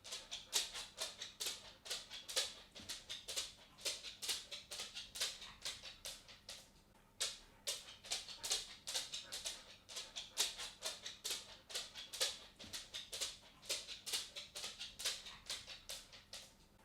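A cat's footsteps on a hard floor: quick light taps, about four a second, with a short pause about seven seconds in.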